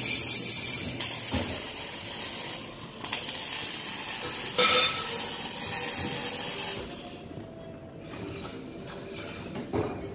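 Wire-feed welder arc-welding a steel tube frame: a steady crackling hiss in a couple of runs, with a short break a few seconds in. It stops about seven seconds in.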